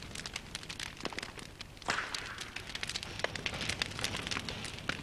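A bonfire of broken wooden timbers and crates crackling and popping, with a louder snap about two seconds in.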